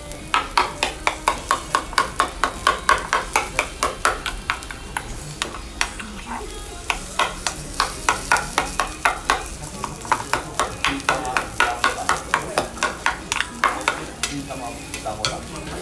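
Spoon clacking and scraping against a metal bowl as shredded cabbage and okonomiyaki batter are stirred briskly, about four strokes a second, with short pauses about six and ten seconds in.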